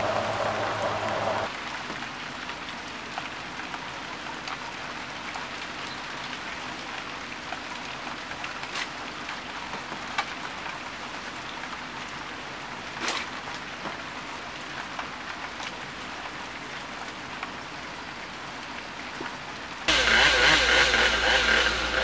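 Steady rain falling, with a few sharp drops striking close by now and then. A louder steady hum fills the first moment and cuts in again near the end.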